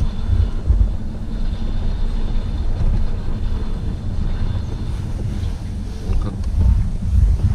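Car driving across lake ice, heard from inside the cabin: a steady low engine and tyre rumble with a constant hum and some wind noise.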